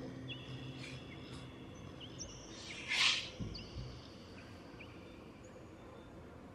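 Small birds chirping in the background, short downward-sliding chirps every second or so. About three seconds in, a brief hiss of noise is the loudest sound, followed by a soft low thump.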